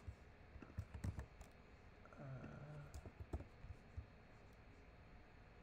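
Faint clicks and taps of a computer keyboard in a scattered run while code is edited, with a short low hum a little after two seconds in.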